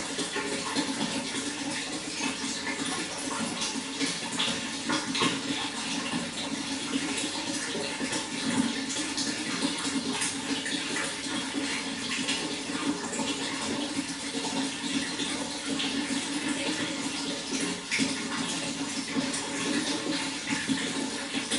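Running water pouring and splashing steadily, with many small quick splashes throughout.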